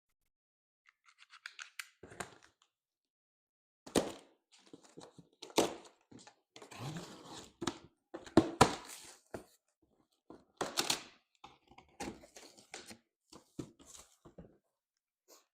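A cardboard shipping box being cut open and its flaps pulled apart: an irregular run of scrapes, tearing and thunks with short pauses between.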